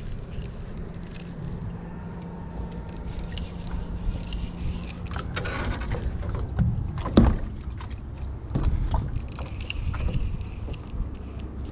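Small knocks, clicks and rustles of gear in a fishing kayak over a steady rumble, with a faint low hum through the first half. One hard thump about seven seconds in is the loudest sound.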